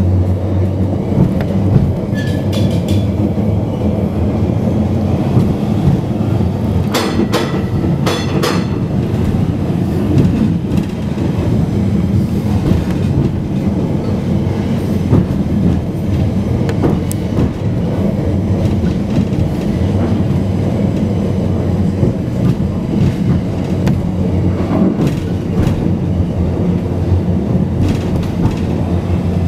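Vintage electric tram running along street track, heard from the upper deck: a steady rumble of wheels on rails over a low hum, with a few sharp clicks about seven and eight seconds in.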